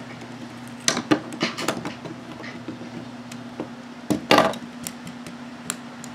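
Plastic Lego bricks clicking and clattering as pieces of a Lego motorcycle model are pulled apart and handled, in scattered short clicks with a louder rattling cluster about four seconds in. A faint steady low hum lies underneath.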